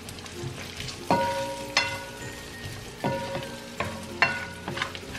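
Diced Chinese sausage sizzling in a nonstick frying pan while a plastic spatula stirs it, with several sharp knocks of the spatula against the pan that set it ringing briefly.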